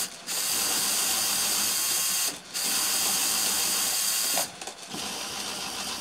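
fischertechnik electric power motors whirring through their gearboxes. They cut out briefly three times, at the start, about two and a half seconds in and about four and a half seconds in, then run on a little quieter. The dropouts are infrared interference: working the other remote's joystick interrupts them.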